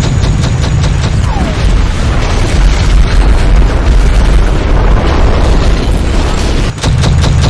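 Rapid automatic gunfire gives way about half a second in to a long, heavy explosion rumble lasting about six seconds, which cuts off suddenly near the end before rapid gunfire starts again.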